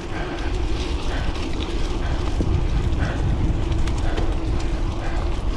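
Wind rumbling on the microphone over the rolling noise of a mountain bike being ridden, with a steady low hum and soft bumps about once a second.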